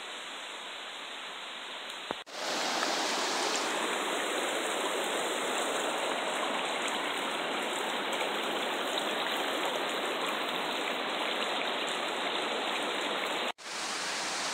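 Shallow river water rushing over a flat rock slab, a steady loud splashing hiss. It comes in suddenly about two seconds in, after a quieter steady rush. It drops out abruptly near the end before a steady rush resumes.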